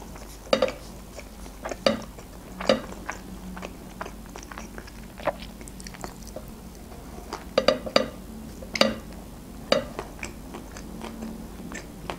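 A person chewing and biting into a shawarma wrap, with irregular short wet mouth clicks and crackles.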